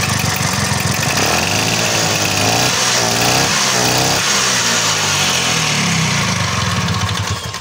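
Vespa scooter's two-stroke single-cylinder engine running, its revs rising and falling several times, then fading out near the end.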